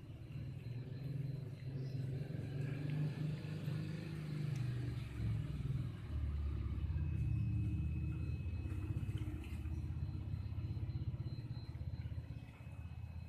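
Low, steady rumble of an engine running nearby, growing heavier about six seconds in.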